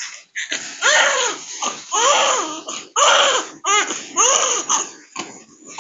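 Newborn baby, just delivered, crying in about five loud wails in a row, each rising and falling in pitch, with one short quavering cry in the middle.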